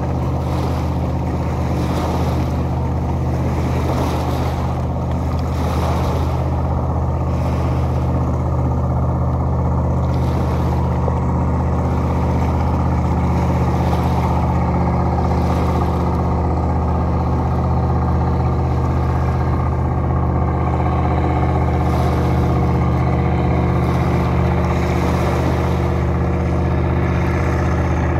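An engine running steadily at an even pitch, with a wash of water on rocks swelling and fading every couple of seconds.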